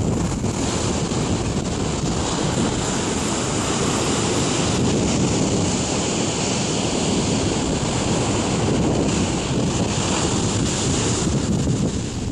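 Heavy surf breaking and rushing continuously, with wind buffeting the microphone. The hiss of the surf falls away near the end.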